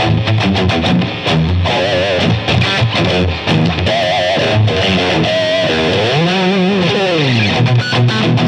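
1986 Ibanez RG430 electric guitar played through distortion: a single-note lead line with wide vibrato on held notes and a note bent up and back down near the end. The pickups are ones the owner finds noisy, flat-sounding and under-powered.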